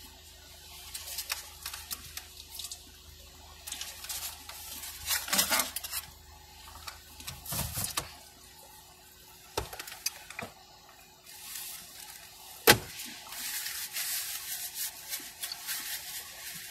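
Someone eating a juicy taco: wet chewing and slurping in irregular bursts, with rustling of the foil wrapper and one sharp click about three-quarters of the way through.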